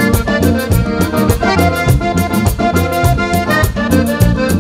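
Accordion playing a lively instrumental passage of Panamanian música típica, over bass and percussion keeping a steady, even beat.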